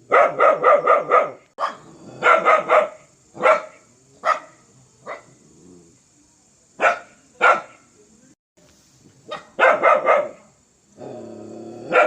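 A dog barking aggressively in quick volleys of four or five barks, with single barks between. About a second before the end there is a longer, drawn-out sound.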